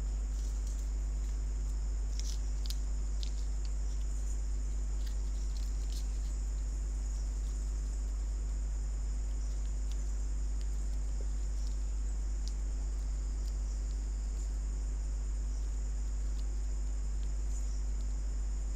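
Steady low electrical hum with a constant high-pitched whine, the recording's noise floor, and a few faint ticks in the first few seconds.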